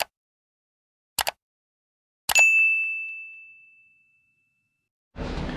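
A short click, a second click a little over a second later, then a single metallic strike that rings out as a high, clear ding and fades away over about two seconds. The silence around it is dead, as in an edited sound effect. A steady room hum comes in near the end.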